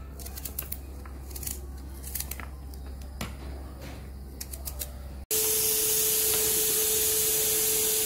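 Small knife slicing shallots held in the hand, faint crisp clicks. About five seconds in, a pressure cooker on a gas flame takes over, louder: a steady hiss of steam escaping at its weight valve, with a steady tone under it, the cooker up to pressure.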